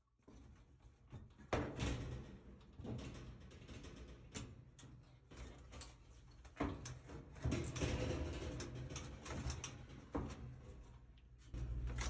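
Irregular knocks, clicks and rattles of sheet-metal dryer parts being handled and fitted together by hand during reassembly.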